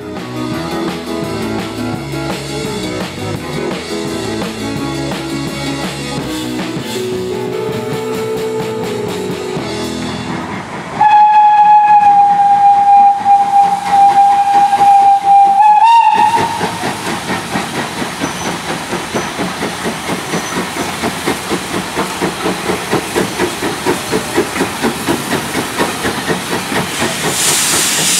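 Steam tank locomotives at work: first BR Standard Class 4 2-6-4T 80080 running with its train, then NER Class H 0-4-0T 1310 sounding a long steady steam whistle for about five seconds that lifts briefly at the end. The whistle gives way to the engine's exhaust beats at about two a second, with a hiss of steam from its open cylinder drain cocks building near the end.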